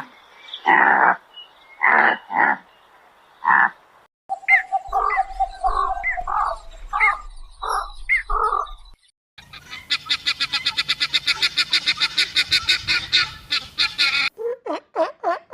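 A run of different animals' calls that switches abruptly every few seconds. First come four or five short harsh calls, then a string of short calls with quick pitch flicks over a low hum. Next is a fast rattling call of many pulses a second lasting about five seconds, and near the end a new call repeats about three times a second.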